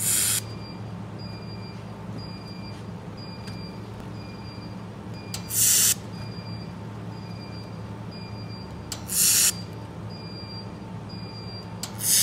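Handheld 1000 W fiber laser welder firing short welds on a 2.8 mm stainless steel fillet joint: four hissing bursts of about half a second each, one at the start, one near six seconds, one near nine seconds and one near the end. A steady low machine hum runs underneath.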